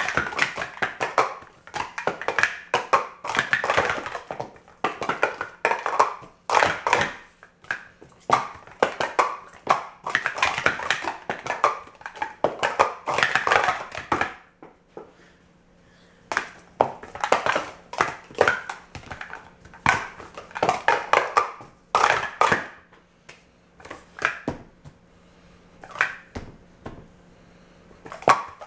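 Plastic Speed Stacks sport-stacking cups clattering as they are rapidly stacked up and down on a stacking mat: a dense run of quick clacks and taps, a pause of about two seconds near the middle, then more clacking that grows sparser near the end.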